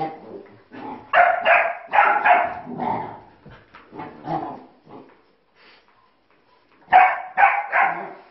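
Young dogs barking in rough play: a run of sharp barks in the first few seconds, a pause, then three quick barks near the end.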